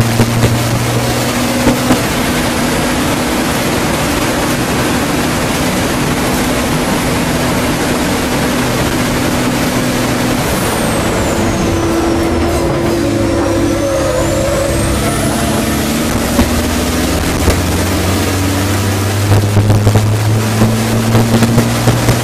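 MAN race truck's turbocharged diesel engine running hard, heard loud inside the cab with heavy wind and road noise. About ten seconds in the engine note drops and a high whistle falls and then climbs again over a few seconds as the truck lifts off and gets back on the power, and a few short sharp knocks come near the end.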